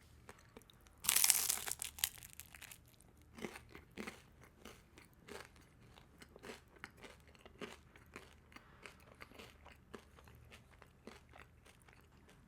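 A crisp bite into crunchy toasted bread about a second in, then steady close-up chewing, with small crunches roughly twice a second.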